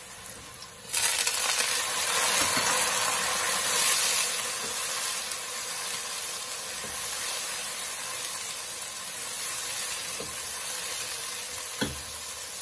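A little water poured onto onions browned in hot oil: a sudden loud sizzle about a second in that slowly settles into steady frying as a spatula stirs the onions. A couple of sharp knocks near the end.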